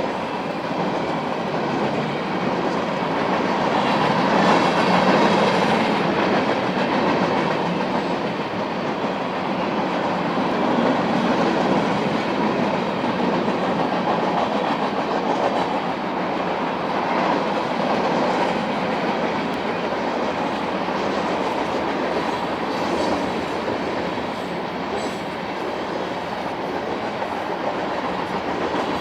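Freight cars of a Union Pacific mixed freight train rolling past steadily, their steel wheels running on the rails, with gentle swells in loudness as the cars go by.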